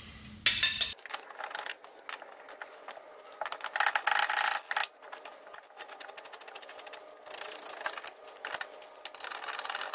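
Ratchet clicking rapidly in several spells as loosened M14 spline bolts on a rear brake caliper carrier are wound out. There is a short metallic clatter about half a second in.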